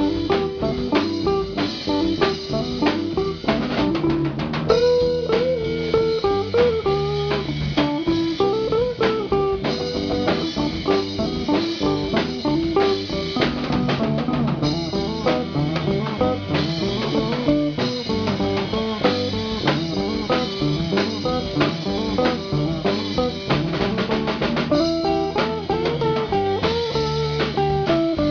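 Live rock band playing without vocals: a semi-hollow electric guitar plays melodic lines over bass guitar and a drum kit keeping a steady beat.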